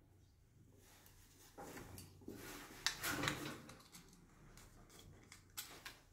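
Faint handling sounds as copper wires and a plastic wall outlet are worked by hand: rustling and scraping with a cluster of sharp clicks in the middle, the loudest about three seconds in, as a small screwdriver works the outlet's terminal screws.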